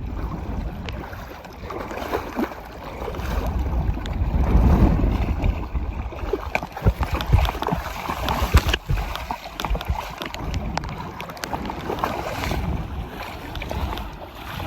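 Wind buffeting the microphone in a rumbling rush that rises and falls, with a few sharp knocks in the middle.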